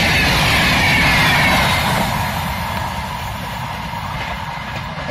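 LHB passenger coaches of an express train passing close at speed: wheels running on the rails with a loud hiss and a high whine that falls in pitch. The noise drops away about two seconds in as the last coach goes by, leaving the fading rumble of the departing train.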